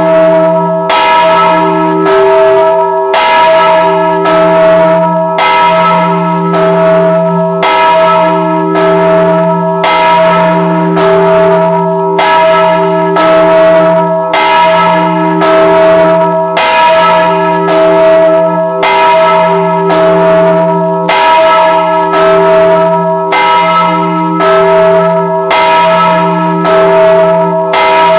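Church bell cast in 1926, swung and struck by its clapper about once a second, heard loud and close from inside the belfry. Each strike rings on into the next over a steady low hum, the bell being rung to call to mass.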